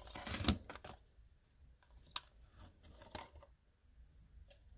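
Rustling and scuffing of foam packing peanuts and a small cardboard box being handled, loudest in the first second, then a few faint taps and clicks as a stack of trading cards and the box are handled.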